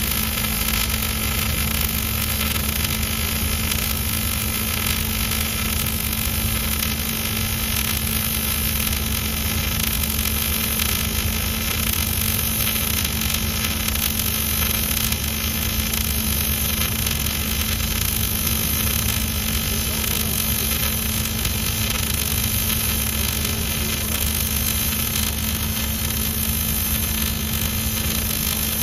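Robotic arc welding on steel: a steady hiss from the welding arc, unbroken, with a steady low hum underneath.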